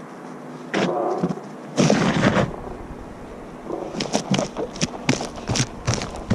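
Camera-microphone handling noise while the camera is carried at a run: a rush of wind and rubbing on the microphone about two seconds in, then a quick, irregular run of knocks and thumps from jostling and footsteps.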